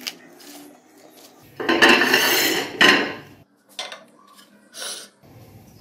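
A cut-glass serving dish clattering and scraping on a marble countertop as a cake is set onto it, loudest for about a second and a half starting near two seconds in, then a couple of lighter knocks.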